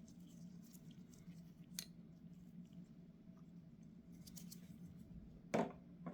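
Small clicks and light scraping of carburetor parts and hand tools being handled during disassembly, with a sharper click about two seconds in and a loud knock near the end, over a faint steady hum.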